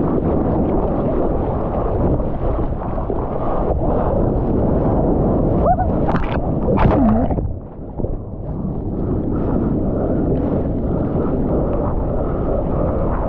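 Seawater sloshing and splashing against a waterproof action camera held at the surface beside a bodyboard in choppy sea, a steady rush of water noise. A louder splash of spray about six to seven seconds in.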